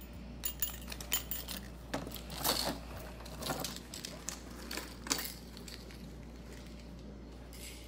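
Metal jewelry being handled: a silver chain necklace clinking and rattling as it is lifted and gathered off a display bust, with a string of light taps and clinks that die down after about five seconds.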